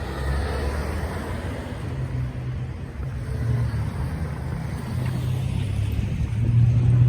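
Street traffic: the low rumble of car engines, growing louder near the end.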